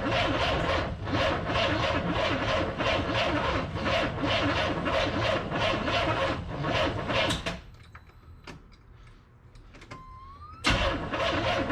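Carbureted Corvette engine cranking on the starter in an even rhythm of about three strokes a second without catching, the sign of a no-start that the owner puts down to fuel delivery at the carburetor. The cranking stops about seven and a half seconds in, and after a short pause it starts again near the end.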